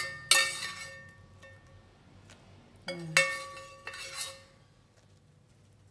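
A dish clinking, each knock followed by a short ringing tone, as red chillies are tipped in among the ingredients in a wooden mortar. There are two sets of knocks, the first about a third of a second in and the second about three seconds in.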